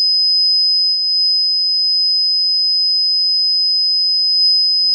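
Loud, steady, high-pitched microphone feedback tone, held at one unwavering pitch.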